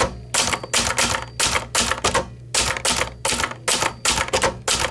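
1969 Brother Opus 895 manual typewriter being typed on, its type bars striking the paper on the platen in a steady run of sharp clacks, about three or four keystrokes a second.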